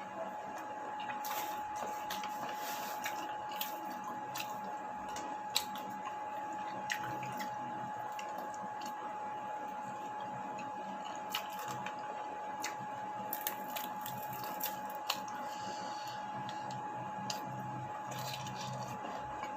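Close-up eating sounds of a person chewing a meal of chicken, tempe and tofu: wet chewing and smacking with scattered sharp clicks. A steady high tone runs underneath throughout.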